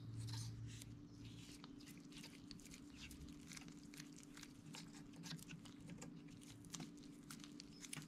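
Faint handling noise: small scattered clicks and taps of gloved hands working a main bearing onto the snout of a VW Type 1 crankshaft, over a low steady hum.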